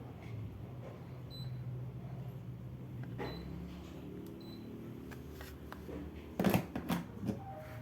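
Sharp room air conditioner running with a steady low hum, with a few faint short high chirps, and a brief clatter of knocks about six and a half seconds in, the loudest thing here.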